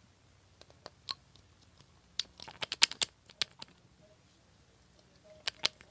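Small plastic glitter bottles shaken and tapped over slime as glitter is sprinkled on: a few sharp clicks, a quick flurry of clicks and taps about two seconds in, and two more clicks near the end.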